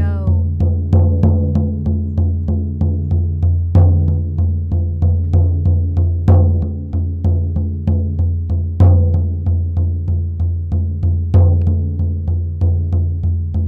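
Hand-held frame drum beaten with a padded beater in a steady, fast shamanic journeying rhythm, each strike leaving a deep boom that carries into the next. About every two and a half seconds one strike lands louder.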